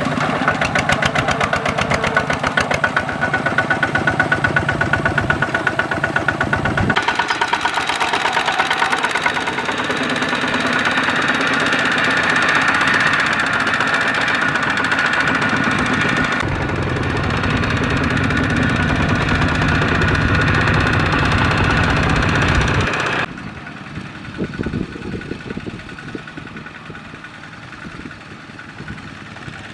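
Two-wheel walking tractor's single-cylinder diesel engine running under load with a fast, even chug while it hauls a trailer of rice sacks. A little over three-quarters of the way through, the sound drops suddenly to a much quieter, uneven level.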